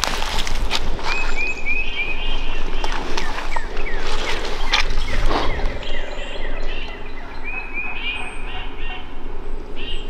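Songbirds singing: repeated series of short, high chirping notes, one run about a second in and another near the end, with a few short rustling noises in between.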